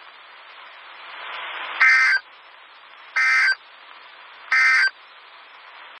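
NOAA Weather Radio SAME end-of-message signal: three short, harsh bursts of digital data tones, about 1.3 seconds apart, over steady radio static. They mark the close of the severe thunderstorm warning broadcast.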